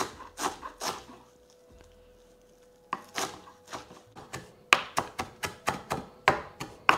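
Kitchen knife chopping fresh mint and coriander leaves on a chopping board: a few sharp strikes, a pause of about two seconds, then a quicker run of chops, about three a second.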